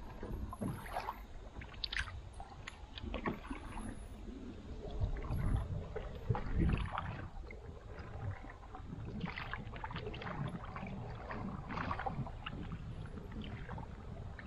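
Canoe paddling: the paddle dips and pulls through the water with irregular splashes and drips, and water slaps along the hull. A louder low rumble comes about five to seven seconds in.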